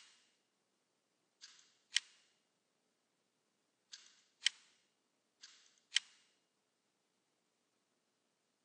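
Computer mouse clicks: four sharp clicks about two seconds apart, each with a softer click about half a second before it. Nothing is heard after the fourth.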